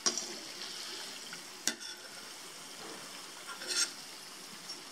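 Kachoris gently sizzling as they deep-fry in ghee on low heat in a kadhai. A sharp metal click comes about a third of the way through, and a short scrape of a steel spoon in the pan near the end as they are lifted out.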